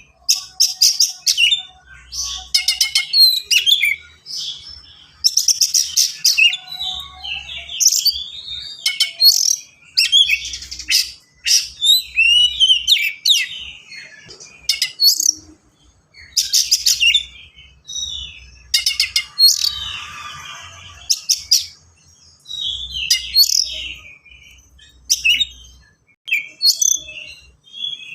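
Oriental magpie-robin (kacer) singing fast and densely: phrase after phrase of rapid-fire stuttering notes and sharp whistled slurs, with short pauses between phrases, mixing in mimicked calls of other birds.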